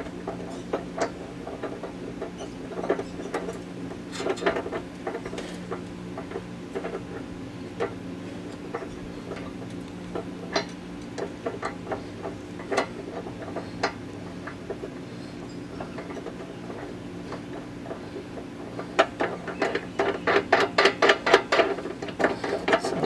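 Small metal clicks and rattles of a trailer-hitch mounting bolt being threaded in and hand-tightened. They are scattered at first, with a quicker run of clicking near the end, over a steady low hum.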